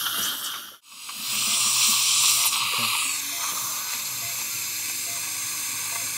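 Steady high hiss of dental surgical suction, broken by a brief dropout about a second in.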